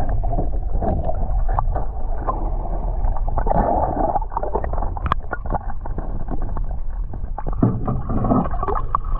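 Muffled underwater sound from a camera held just below the water's surface: a steady churning and gurgling of water against the housing, with scattered small knocks.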